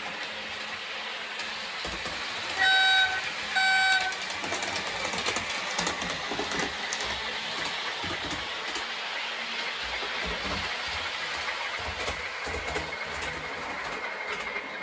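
Model Class 37 diesel locomotive running on the layout with a steady running noise, sounding two short horn blasts of the same pitch about three seconds in. The horn comes from the model's sound decoder.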